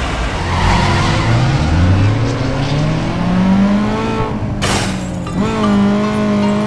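Car engine sound effect laid over the footage: an engine revving up, rising steadily in pitch, then a short burst of rushing noise about four and a half seconds in, after which the engine holds a steady note.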